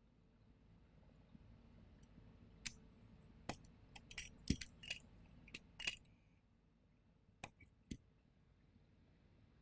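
Fiber optic cleaver being worked: a quick run of small, sharp clicks and taps, then two more clicks a little later.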